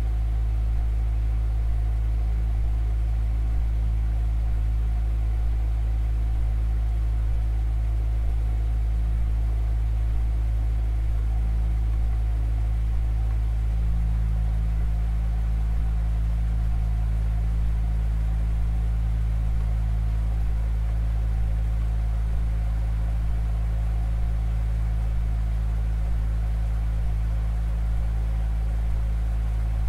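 Pipe organ holding low tones in a deep, steady drone. A higher held tone drops out about halfway through, and a lower one settles into a constant note.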